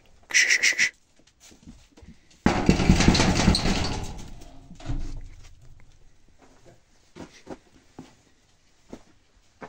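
Goats moving about a barn: a short, quickly pulsing call near the start, then a loud rattling clatter about two and a half seconds in that dies away over a couple of seconds, and a few light knocks after.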